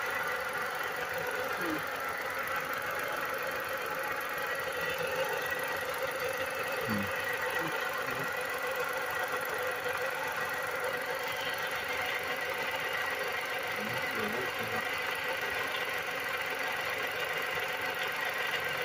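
Car engine idling steadily with the hood open, making a noise the owner says is not normal.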